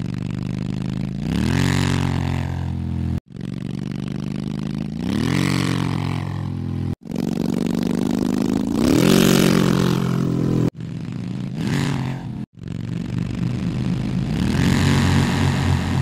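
Motorcycle engine idling and then revving up and back down, played five times in a row with abrupt cuts between. Each version is altered by a different effect.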